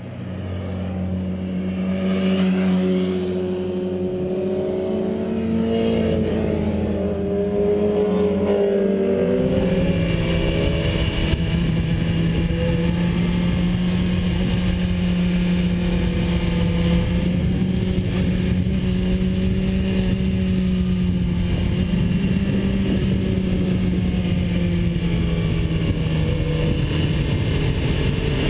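BMW S 1000RR sport bike's inline-four engine running with a steady note under the rider, with sliding engine tones in the first ten seconds. From about ten seconds in, wind rushes over the microphone as the bike is ridden at a steady pace.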